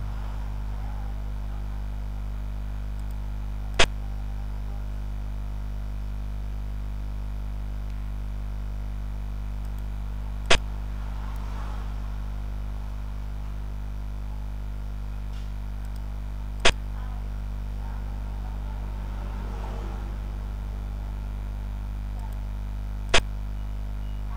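Four single sharp clicks, several seconds apart: the move sound of a xiangqi replay program as each piece is set down. Under them runs a steady low hum.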